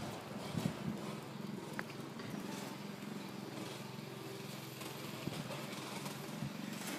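Steady low outdoor background hum, with a few faint light clicks in the first second.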